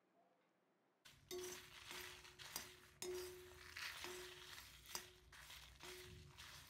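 Quiet scraping and clinking of a metal slotted ladle against a heavy cast-iron pan as it stirs dried red chillies, coriander seeds and fenugreek seeds during dry roasting. It starts about a second in, with a knock about once a second, each followed by a short ringing tone.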